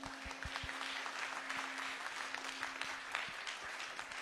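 Audience applauding: a dense patter of many hands clapping, with a steady low hum underneath.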